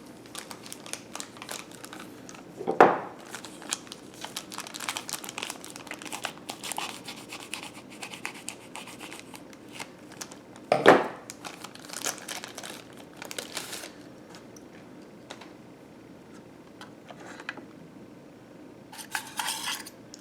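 Hands handling laptop parts and a drive: crinkling, rubbing and small clicks, with two sharper knocks about 3 s and 11 s in.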